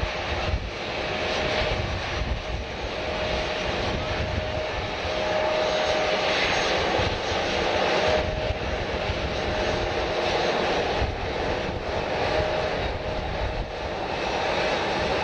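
Airliner engines running, a steady rushing noise with a held tone through it, getting a little louder after a few seconds.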